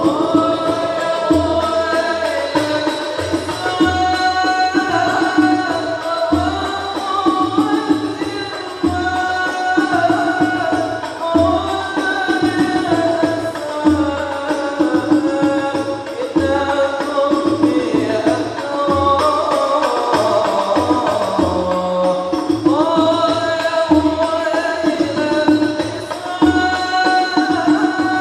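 Hadrah al-banjari ensemble: male voices singing a melodic devotional song together over a steady beat of hand-struck terbang frame drums.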